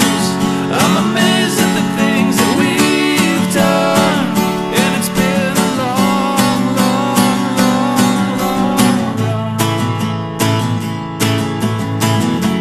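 Instrumental passage of an indie country-tinged song: strummed acoustic guitar keeping a steady rhythm under a wavering melodic line.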